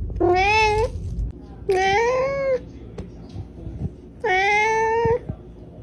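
Domestic cat meowing three times, each meow a little under a second long, with uneven gaps between them.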